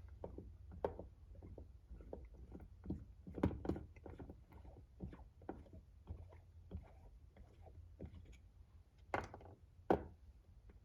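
Scattered light clicks and taps of small RC transmission parts being handled and worked apart by hand, with two sharper knocks near the end.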